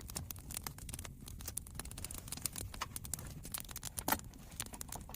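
Pork ribs on a grill over a campfire: dense, irregular crackling and popping, with one louder pop about four seconds in.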